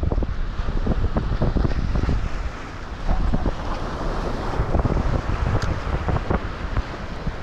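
Strong, steady headwind buffeting the microphone in irregular gusts, over the wash of small waves breaking on the shore rocks.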